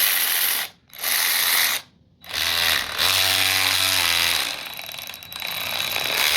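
Byczone 3/8-inch cordless ratchet wrench running in trigger bursts: two short bursts, then a longer run starting about two and a half seconds in, whose pitch rises as the motor spins up. It spins freely and has too little torque to be useful.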